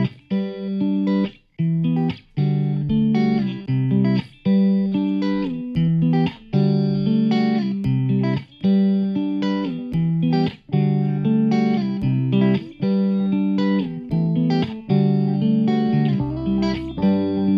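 Instrumental music led by plucked guitar, with notes struck in a steady rhythm.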